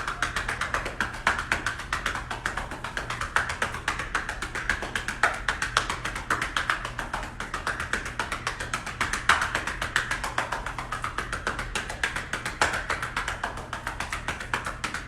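Hands patting rapidly and steadily on a person's back, several pats a second: chest percussion (chest physiotherapy) to break up and loosen mucus in the lungs.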